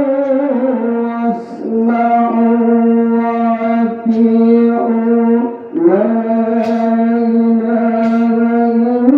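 A man's voice chanting an Islamic call over a public-address loudspeaker, in long, drawn-out held notes broken by short breaths about a second and a half in and again near six seconds.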